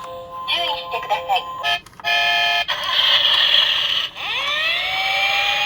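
A siren winds up, rising in pitch about four seconds in and then holding steady. Before it come a snatch of synthetic-sounding voice and a short steady electronic tone about two seconds in.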